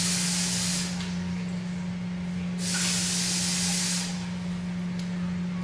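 Kitchen faucet running in two hissing bursts of water, each about a second long, with a steady low hum underneath.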